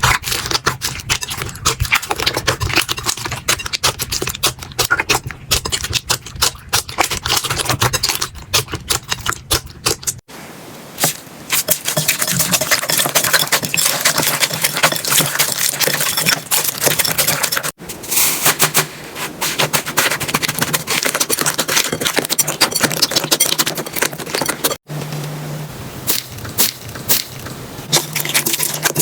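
Slime being squeezed, poked and pressed by hand, giving a dense run of crackling clicks and pops. The sound changes abruptly three times, near 10, 18 and 25 seconds in, as one slime clip gives way to the next.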